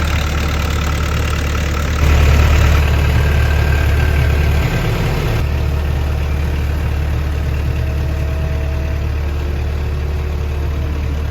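Komatsu PC138US-8 excavator's diesel engine idling steadily, briefly running a little louder about two seconds in before settling back.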